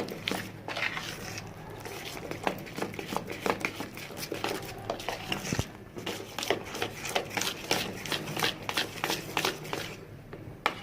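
Thick ground black-lentil batter being mixed in a bowl: a dense, irregular run of wet clicks and slaps. It pauses briefly about five and a half seconds in and again near the end.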